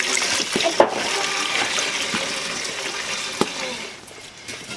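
Water pouring from a plastic jerrycan into an aluminium cooking pot: a steady gushing splash that tails off and stops near the end, with a single knock just before it stops.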